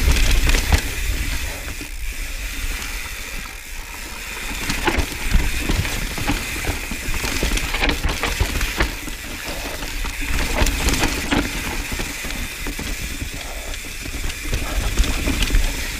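Mountain bike riding down a dirt singletrack: tyres rolling and the bike clattering over roots and rocks, with a steady rush of wind on the helmet camera's microphone.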